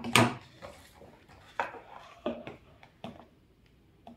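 Thin plastic water bottle crinkling and clicking as it is handled and side cutters work at its label: several short crackles and clicks, the loudest right at the start.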